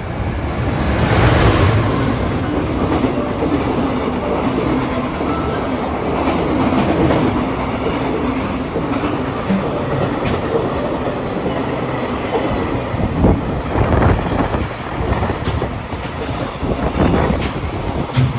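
A train running past, its wheels clattering over the rail joints, with a run of sharper clacks in the last few seconds.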